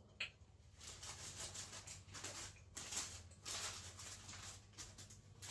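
Faint, irregular soft rustles and pats of hands laying raw potato slices on a parchment-lined baking tray, with a short click just after the start.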